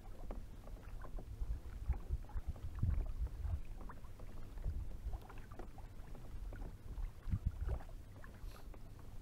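Small waves lapping against a fishing kayak's hull in irregular little splashes, over an uneven low rumble.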